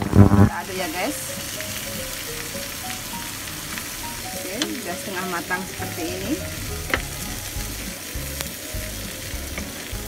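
Shell-on shrimp sizzling as they fry in butter in a pan, stirred with a wooden spatula that now and then scrapes and knocks against the pan. Background music cuts off about half a second in.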